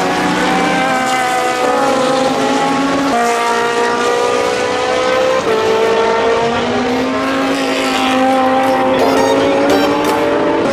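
Racing car engines running hard on track, several engine notes at once holding high revs and shifting in pitch as the cars change gear and pass.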